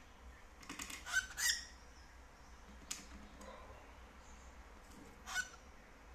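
Cockatiels giving short, high calls: a quick run of several about a second in and one more near the end, with a single sharp click in between.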